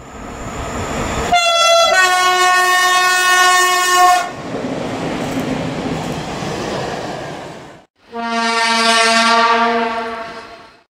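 A locomotive horn sounds for about three seconds over the rush of a train, followed by the noise of the train running on. After a short cut, a second horn blast sounds, its low notes wavering.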